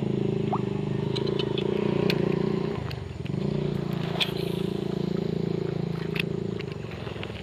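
An engine drones steadily, its note dropping away briefly about three seconds in and then picking up again before fading near the end, with a few sharp light clicks over it.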